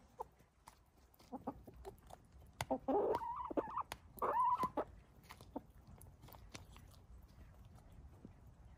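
Hens clucking while pecking from a plastic cup: a few short clucks, then two longer, louder calls about three and four and a half seconds in, with scattered sharp taps of beaks against the cup.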